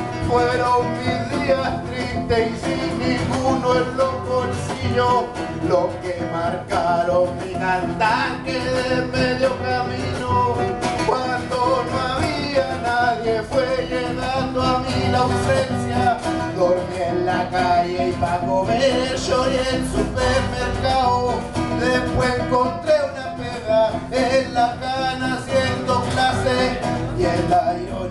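A man singing live while playing an acoustic guitar plugged in through a cable.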